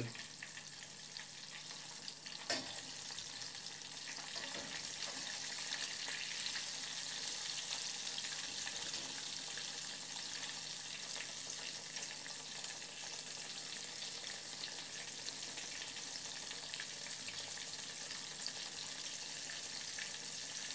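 Tempura-battered morel pieces frying in a small stainless steel saucepan of oil, with a steady sizzle. A single sharp clink about two and a half seconds in comes from the fork touching the pan.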